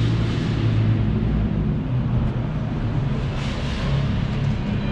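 Steady low hum and rumble of a large indoor exhibition hall, with a brief rise in hiss about three and a half seconds in.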